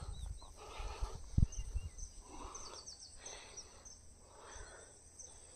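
Rural outdoor ambience: a steady high insect trill with a few short bird chirps. Soft rustling swells come roughly once a second, and there is a low thump early on.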